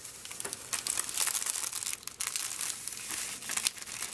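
Plastic food pouch crinkling as it is squeezed and shaken, tipping dry handvo mix (a lentil and rice batter mix) into a bowl of liquid; a dense run of quick, irregular crackles.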